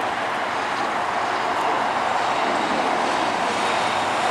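Airbus A350-1000's twin Rolls-Royce Trent XWB turbofans at takeoff power during the departure roll: a steady jet roar that grows slightly louder after the first couple of seconds.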